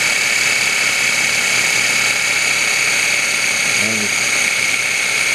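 Food processor motor running steadily with a high whine, its blade churning heavy whipping cream that has thickened to whipped cream on its way to butter.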